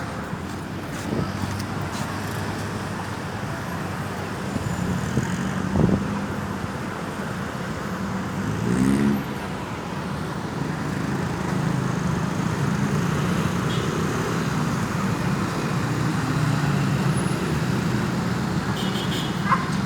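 Street traffic: motor vehicles running and passing, with a sharp knock about six seconds in and a brief rising whine near nine seconds.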